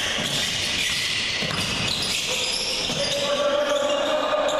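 Basketball being dribbled on a gym's hardwood court, with players' and spectators' voices.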